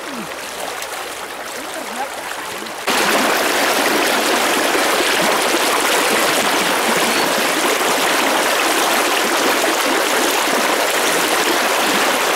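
Shallow stream rushing and splashing over stones. About three seconds in, it jumps abruptly to a much louder, steady, full rush heard right at the water's surface.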